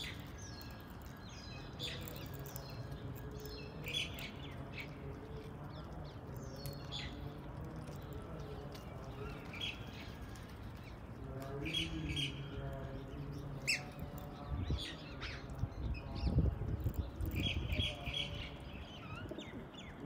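Birds calling: short high chirps that repeat throughout over lower, steadier calls, with a few soft low thumps and flutters about three quarters of the way in.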